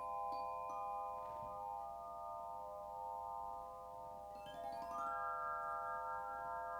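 Several crystal singing bowls ringing together in long, sustained, overlapping tones that pulse gently against each other. A higher tone joins about a second in, and another swells up in pitch and enters around five seconds in.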